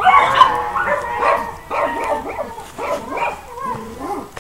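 Dogs barking and yipping: a string of short, high calls, several a second, overlapping.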